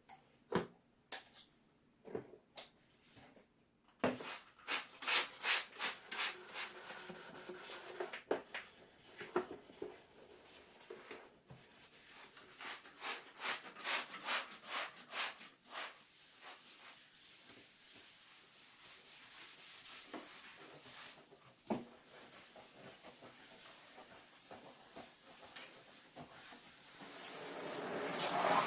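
Scrubbing by hand against a surface: a few light knocks of handling, then quick back-and-forth strokes that ease into softer, steadier rubbing. Near the end a tap starts running.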